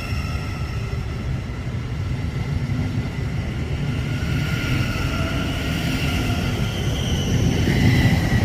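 A train running through on the rails: a low rumble with steady high-pitched whining tones over it, getting louder towards the end.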